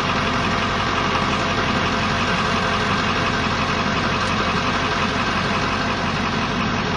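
Vehicle engine idling steadily, heard from inside the vehicle.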